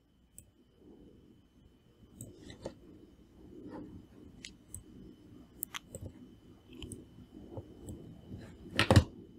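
Scattered faint clicks of a computer mouse being clicked and dragged, over low room noise and a faint steady high whine, with one louder knock near the end.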